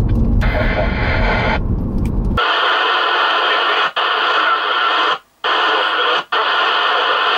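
AM CB radio receiver giving out loud, steady static hiss from the Midland Alan 199-A's speaker, with no readable speech and three brief cut-outs. For the first couple of seconds there is low in-car road rumble, with a short burst of hiss over it.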